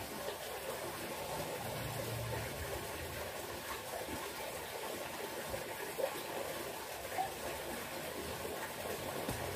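Steady rushing background noise, like running water, with two faint knocks about six and seven seconds in.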